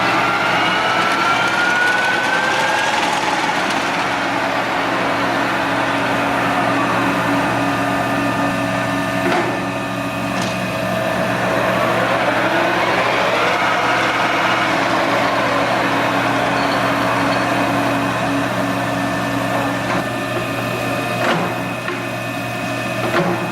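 American engine lathe running under power: a steady whine from the headstock gearing in several pitches over a low hum. The whine rises in pitch during the first few seconds as the spindle speeds up, and there are a few sharp clicks.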